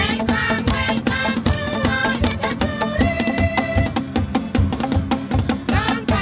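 Group of women singing a welcome song over a Bougainville-style pipe band: upright tubes struck on their open ends give a steady beat of deep, pitched thuds, with a strummed ukulele and guitar.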